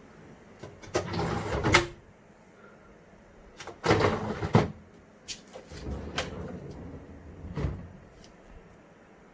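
Compartments of a Samsung kimchi refrigerator being opened and shut: two loud sliding sweeps ending in clicks, then softer handling and knocks.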